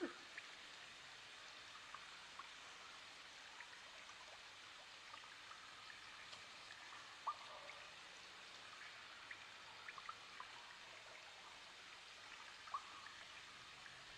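Near silence: faint background hiss with a few soft, scattered ticks, two slightly louder ones about seven seconds in and near the end.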